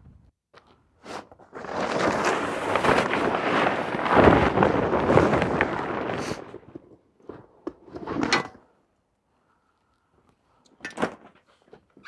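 Plastic tarp rustling and crinkling loudly for about five seconds as it is dragged off a sawmill. A few light knocks follow, and a sharper knock comes near the end.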